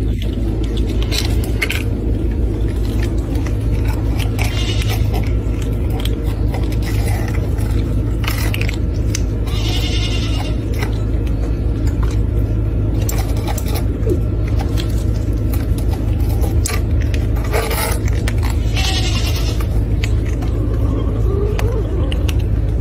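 Kittens mewing at a food bowl, with short high cries around five, ten and nineteen seconds in, over a steady low rumble.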